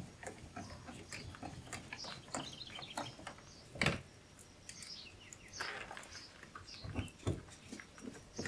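Light clicks and knocks of parts being handled at an open car door, with one louder knock about four seconds in and two more near the end. Birds chirp in the background.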